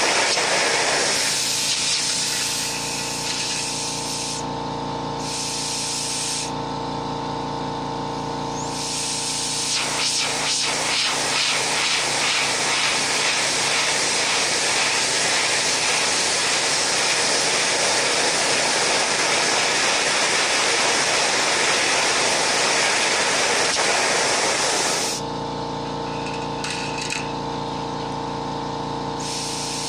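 Air blower running, a steady rushing hiss of the air jet that keeps a marble floating. A steady hum runs under it, fades for a stretch in the middle and returns near the end.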